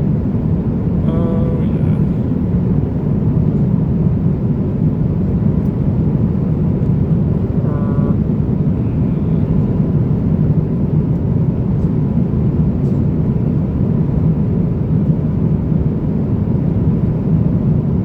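Steady roar of an Airbus A350-900 passenger cabin in flight, the engines' and airflow's constant low rumble with no change in level. A brief faint voice comes through about a second in and again around eight seconds.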